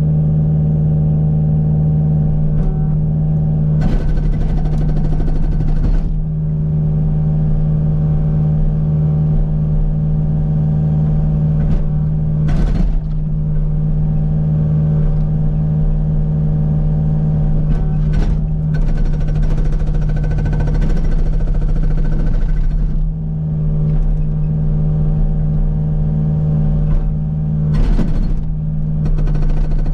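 Kubota U55 mini excavator's diesel engine running steadily. It is broken several times by short spells of harsh rapid noise, about four seconds in, near the middle, and near the end, from the Agrotk 680 hydraulic breaker hammering rock.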